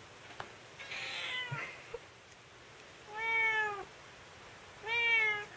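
Tabby cat meowing: two long, drawn-out meows a little over a second apart, each rising then falling in pitch. A shorter, rougher cry comes about a second in.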